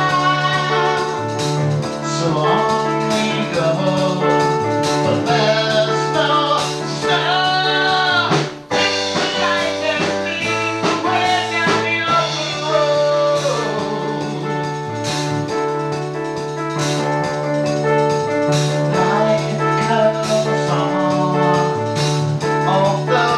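A band playing a blues-style song, with singing over drum kit and guitar. The music briefly drops out about nine seconds in.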